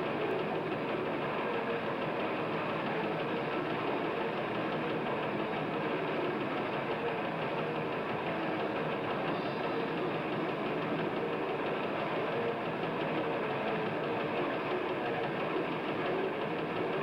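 Death metal band playing live on distorted electric guitars and drums: a dense, unbroken, muddy wall of sound with no treble, as on an old camcorder recording.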